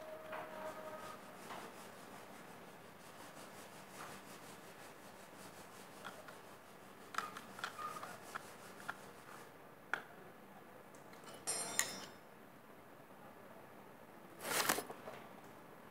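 Handling noise close to the phone's microphone: faint rubbing with scattered small clicks and knocks, a short jingly scrape a little past two-thirds of the way through, and a louder brushing rustle near the end.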